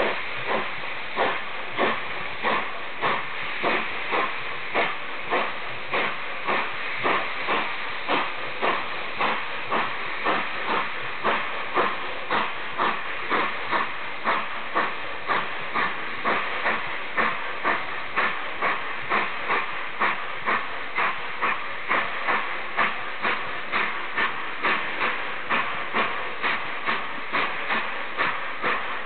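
Steam locomotive 498.1 'Albatros' working, its exhaust beating out steady chuffs about twice a second over a continuous hiss of steam.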